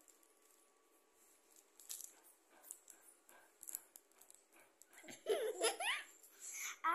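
A plastic bread wrapper crinkling and clicking faintly as a baby handles it, then a baby's high giggle about five seconds in, rising and falling in pitch.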